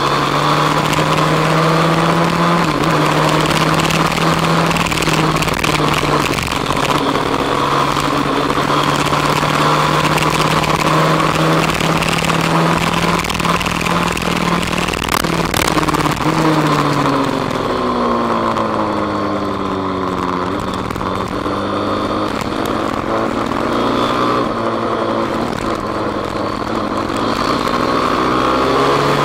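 Kawasaki KSR110 single-cylinder four-stroke, bored out to 185 cc with a four-valve head, running hard at high revs through a lap. A little over halfway through the revs fall off, then climb again toward the end.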